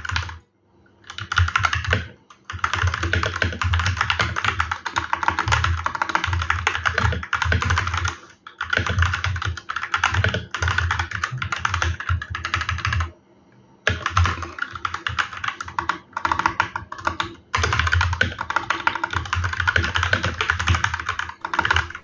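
Fast typing on a Husky Hailstorm 65% mechanical keyboard with Gateron Red switches: a dense, continuous clatter of keystrokes in runs of several seconds, broken by brief pauses, the longest a little after the middle.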